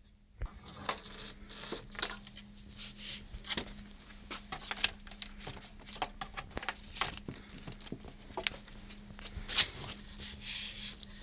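Hand work with a T15 Torx screwdriver, undoing a screw on a motorcycle's handlebar switch cluster: irregular small clicks, scrapes and rubbing of the tool and plastic parts.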